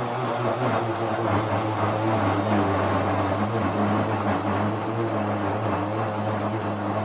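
Electric power saw running steadily as it cuts through a laminate countertop, a low motor hum with wavering overtones over a loud hiss.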